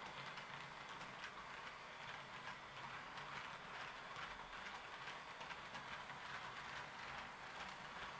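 HO-scale model train running on its track: a faint steady rolling hiss with frequent small clicks as the wheels pass over rail joints and points, under a low motor hum.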